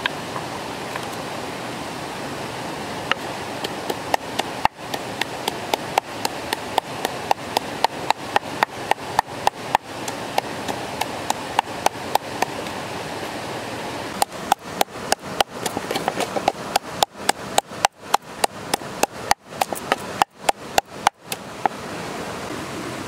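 Wooden pestle pounding chillies in a wooden mortar: quick, regular knocks, roughly three a second, with a short pause midway, over the steady rush of a stream.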